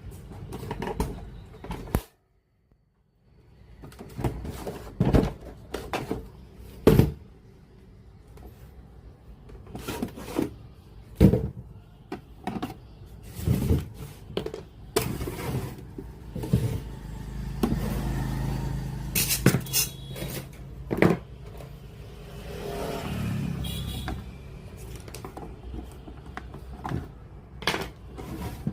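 Irregular clicks, knocks and scrapes of hands and tools working on a radio cassette player, over a low hum. The sound cuts out completely for about a second, about two seconds in.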